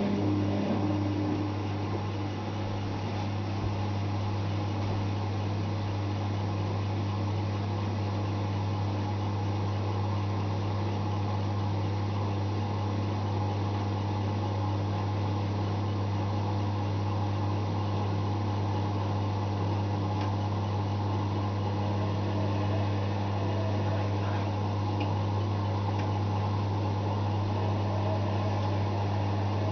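Zanussi ZWF 1621 W front-loading washing machine spinning on its 1600 rpm spin cycle, a steady, unchanging motor hum.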